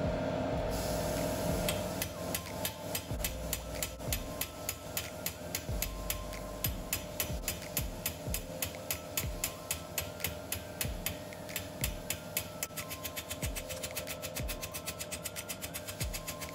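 Hammer repeatedly striking sheet steel clamped in a bench vice, shaping a new repair piece: a steady run of sharp metallic blows, about two a second, quickening to three or more a second near the end.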